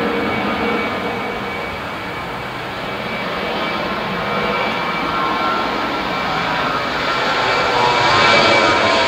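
Boeing 737 jet engines at high thrust on a takeoff roll down a wet runway, a steady jet roar with a high fan whine over it, growing louder as the plane nears.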